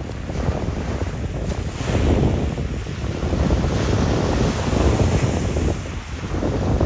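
Wind buffeting the microphone: an uneven, heavy low rumble that swells about two seconds in and stays strong until it dips briefly near the end.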